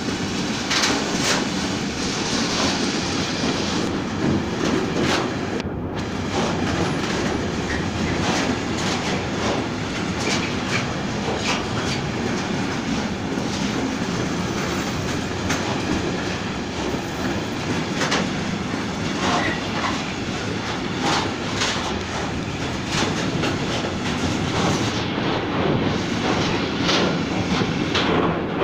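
Freight train wagons rolling past steadily, their wheels clacking over rail joints in a continuous, uneven run of clicks.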